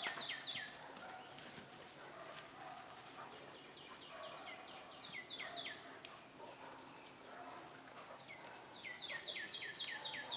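A songbird singing runs of quick whistled notes that slide down in pitch, three runs of several notes each, at the start, around the middle and near the end. Faint scattered ticks and rustles underneath, as of dogs moving about and sniffing the ground.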